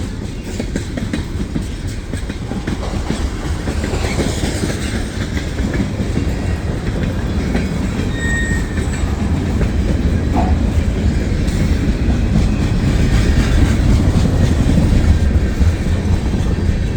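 Freight train cars rolling past, a steady heavy rumble with wheels clacking over the rail joints, growing louder in the second half.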